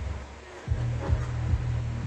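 Song playing over Bluetooth through a home theatre system's speakers, bass-heavy with a regular beat, dipping briefly about half a second in.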